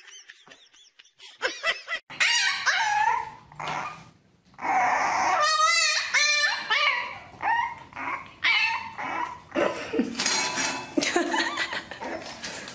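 French bulldog puppy yapping and whining, starting about two seconds in: a string of short, high yips with drawn-out, wavering cries between them.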